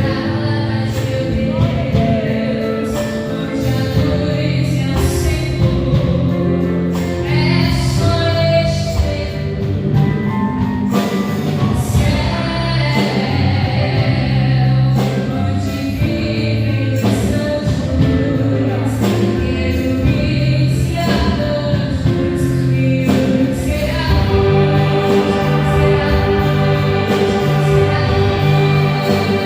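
Gospel band playing live worship music, with voices singing over the band's accompaniment.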